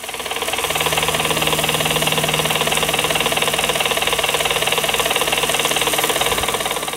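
Battery-powered electric motor of a toy helicopter playset running steadily, swinging the helicopter around on its boom arm with the rotor turning. It makes a fast, even whirring buzz that builds up over the first second and eases slightly near the end.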